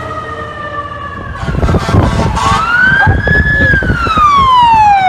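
Fire truck sirens: a siren winds slowly down, then about a second and a half in a loud low rumble of a passing truck comes in as a siren wails up, holds briefly and slides steadily down.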